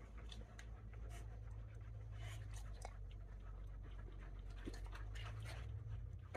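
Several dogs panting softly, with scattered short breaths and small clicks. A low steady hum runs underneath and stops near the end.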